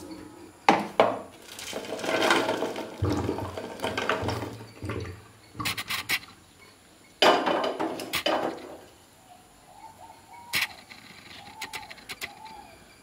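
Aluminium pots and a colander clattering and clinking while boiled legumes are drained and moved into a bowl, with rattling stretches and a few sharp metal clinks. It gets quieter near the end, where faint short warbling tones repeat.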